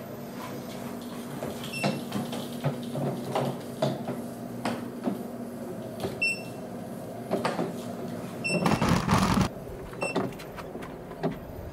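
Zendure Superbase V power station driving itself on its motorized wheels: a steady electric motor hum with clicks and knocks from the wheels and casing, and short high beeps several times. A louder rushing noise comes about nine seconds in.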